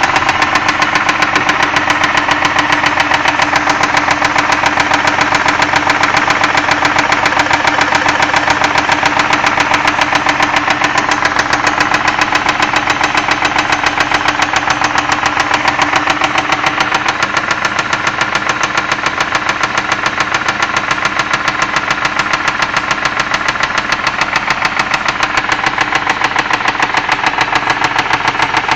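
2001 Ford Escape's 3.0 L V6 engine running steadily with a rapid, even knock throughout, the engine knock the owner is trying to diagnose.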